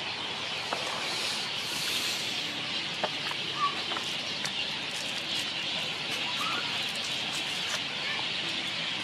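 Outdoor ambience: a steady hiss with faint clicks and two short chirping calls, one about three and a half seconds in and one rising call a little past six seconds.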